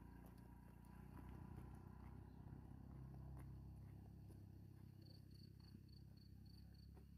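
Faint low hum of a distant motorcycle engine, swelling slightly and then easing off. Near the end comes a short run of seven quick, high chirps.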